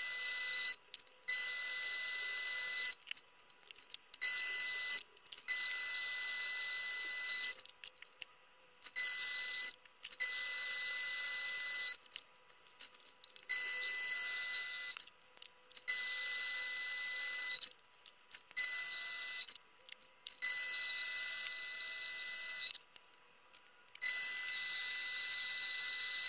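Sieg C3 mini lathe turning a metal rod, its motor and cut sped up five times into a high-pitched whine with a steady tone. It comes in stretches of one to two seconds broken by short silences and gets clearly louder over the last two seconds.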